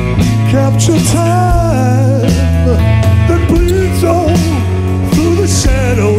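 Live rock band playing: a male singer's voice over electric guitar, bass guitar and drums, with cymbal crashes.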